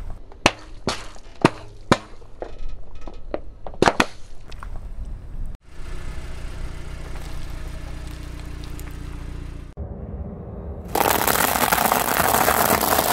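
Ice cubes cracking and snapping under a car tyre: a quick run of sharp cracks over the first four seconds or so. After a sudden cut comes a steady rushing noise, and for the last two seconds a louder hiss.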